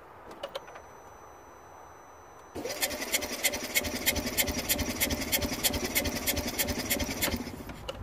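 Smart Fortwo 451's 1.0-litre three-cylinder petrol engine turned over on its starter for about five seconds, starting about two and a half seconds in, with a fast, regular clatter of about six beats a second and no firing. This is a compression test: the cylinder reads only 40 to 50 psi against the 150 to 160 it should have, and that low compression is why the engine won't start.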